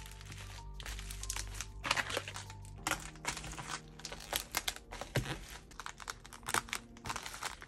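Metallic silver bubble mailers crinkling and rustling as they are handled and labels are pressed onto them, in irregular crackly strokes, with background music underneath.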